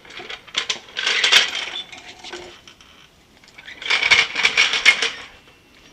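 Metal hand tools clinking and clicking in two bursts of rapid metallic clicks, about a second in and again about four seconds in, as they work on the motorcycle's rear shock mounting.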